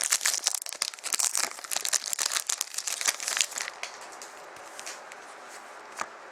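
Plastic wrapping on a box of trading cards being torn and crinkled open, dense crackling for about three and a half seconds, then quieter handling with a single click near the end.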